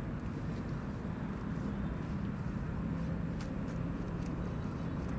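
Steady low rumble of road traffic from a highway, with a faint engine hum in the middle and a few faint clicks near the end.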